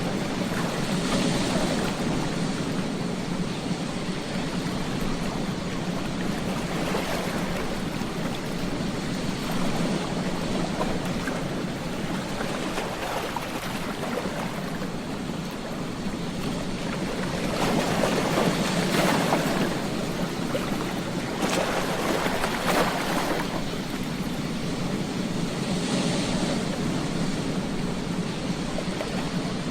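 Ocean surf washing onto a beach: a steady rush of water that swells with each breaking wave, the biggest surges coming between about two-thirds and three-quarters of the way through.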